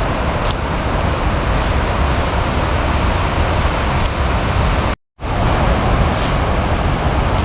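Steady, loud rush of water noise, broken by a sudden gap of silence of a fraction of a second about five seconds in.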